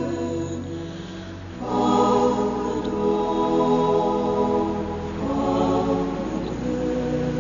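Slow background music of long held chords, moving to a new chord about one and a half seconds in and again about five seconds in.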